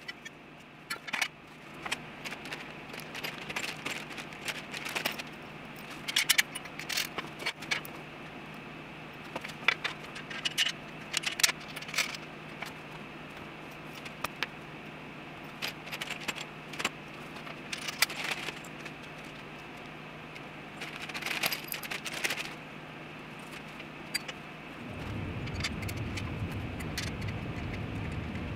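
Metal hardware clinking and rattling as the planer's steel mobile stand is assembled: scattered sharp clicks and jangles of bolts, nuts and parts being handled, over a steady low hum. A low rumble starts near the end.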